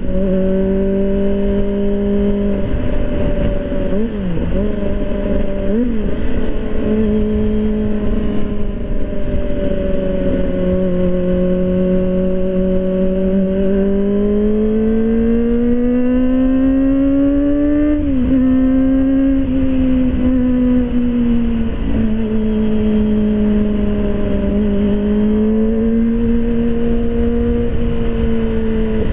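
Kawasaki ZX-25R's inline-four engine running through an Arrow aftermarket exhaust while riding, holding steady revs. Brief dips in pitch come at about four and six seconds. Past the middle the pitch rises for a few seconds, then drops sharply as the revs fall.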